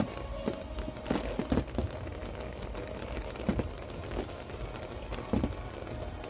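Aerial fireworks shells bursting in sharp bangs, a quick run of them about a second in and single ones later, over show music.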